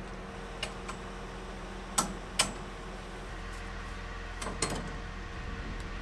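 Sharp metallic clicks and knocks from a hand-crank rod working a grain cart's roll tarp: two loud ones about two seconds in and a short cluster near the end, over a low steady hum.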